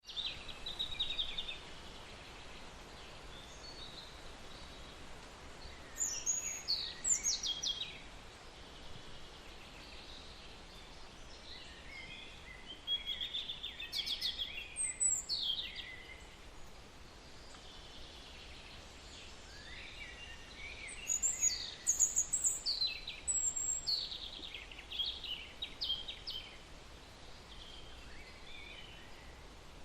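Birds chirping and singing in several bouts of quick, high-pitched sweeping calls, over a steady background hiss.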